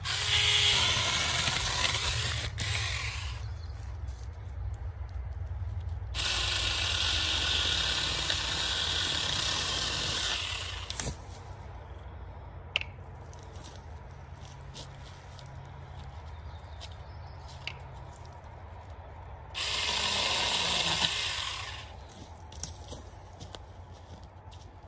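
Saker 4-inch cordless mini electric chainsaw whining as it cuts through small pine saplings at the base, in three bursts that start and stop abruptly: about three seconds at the start, about five seconds from six seconds in, and about two seconds near the end. Between the cuts come scattered snaps and clicks of twigs and brush.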